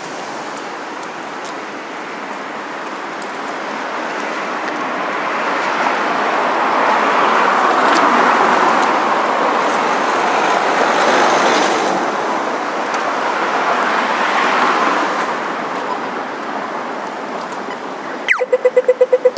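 City street traffic: vehicles passing, the road noise swelling to a peak around the middle and then easing off. Near the end a loud, rapid pulsing tone starts suddenly, about nine pulses a second.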